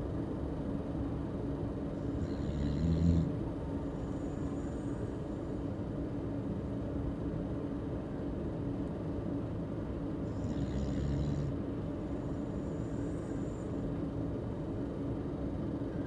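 A sleeping pet snoring: two slow snores about eight seconds apart, each a low snoring breath with a hiss, followed a second or two later by a faint high whistle. A steady low hum runs underneath.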